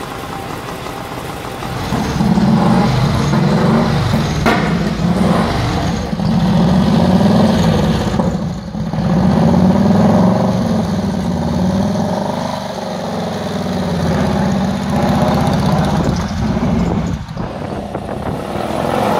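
Crocker Small Tank motorcycle's 1-litre V-twin engine running. It gets louder about two seconds in, then swells and eases several times as the revs change.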